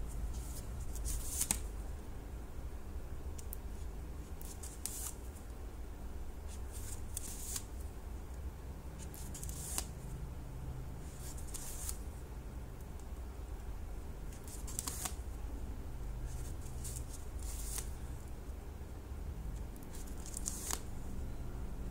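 Yarn being drawn through crocheted stitches with a needle as two crocheted panels are sewn together: soft brushing swishes every second or two over a low steady hum.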